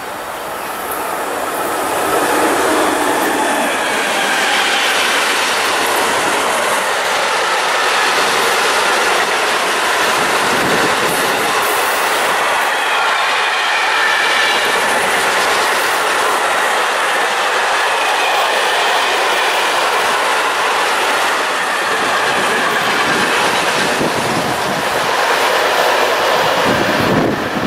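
Long electric-hauled freight train of tank-container wagons rolling past at speed, hauled by locomotive BB 27003: a steady, loud rolling noise of wheels on rail that builds over the first two seconds and then holds as the wagons go by.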